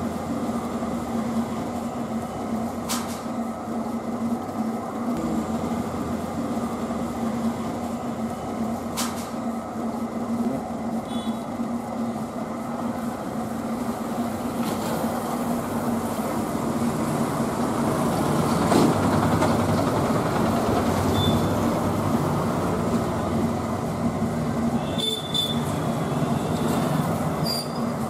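Potter's wheel spinning with a steady rumble and a constant low hum while wet clay is thrown into a pot on it, swelling slightly about two-thirds of the way through, with faint high squeaks near the end.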